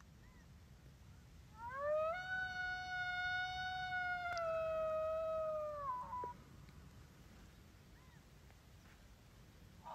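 A single long coyote howl, sliding up at the start, held nearly level for about four seconds, then dropping and breaking off. A second howl begins rising near the end.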